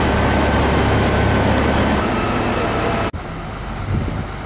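Excavator's diesel engine running with a steady low rumble. About three seconds in, it gives way suddenly to a quieter, even background hum.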